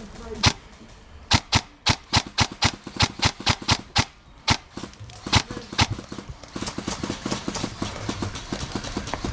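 Airsoft guns firing a rapid string of sharp single shots, about four to five a second, then a few spaced shots; from about six and a half seconds a denser, quieter clatter of small clicks.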